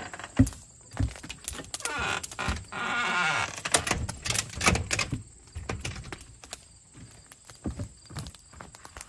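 Footsteps and knocks on a wooden deck and its steps, the loudest a sharp knock about half a second in. Two brief high squealing sounds come around two and three seconds in, followed by scattered light clicks and steps.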